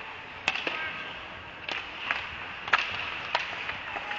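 Ice hockey game play: about five sharp cracks of sticks and puck striking on the ice, spaced irregularly over a few seconds against the hollow background of the rink.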